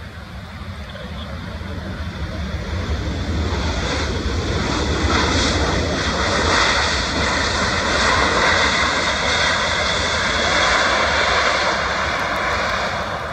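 Boeing 737-700's CFM56 turbofan engines in reverse thrust on the landing rollout: a low rumble with a hissing whine over it, growing louder over the first few seconds and holding loud until it cuts off abruptly near the end.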